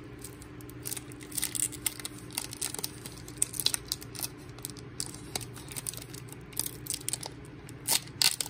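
Foil wrapper of a Pokémon trading-card booster pack being torn open by hand, crinkling and tearing in short bursts, the loudest near the end.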